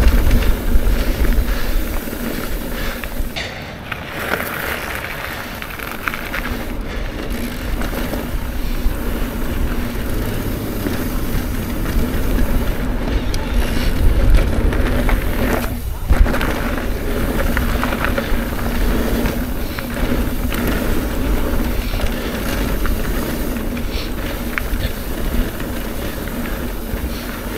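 Trek Rail electric mountain bike riding fast down a dirt trail: tyres and frame rattling over the ground, with wind rumbling on the action camera's microphone.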